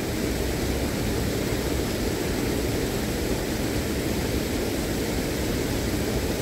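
Steady rush of water from a small waterfall: a continuous, even noise with no separate events.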